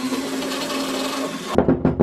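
Small pen-style rotary tool running with a steady hum while its bit scrubs rust from the inside of a cast-iron meat grinder body. About one and a half seconds in it cuts off and music with sharp percussive beats starts.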